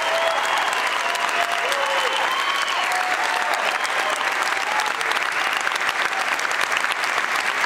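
Concert-hall audience applauding steadily, with a few cheering voices over the clapping in the first half.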